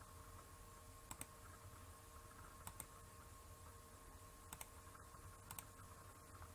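Faint computer mouse clicks, each a quick press-and-release pair, about five times against near-silent room tone, as anchor points are placed one by one.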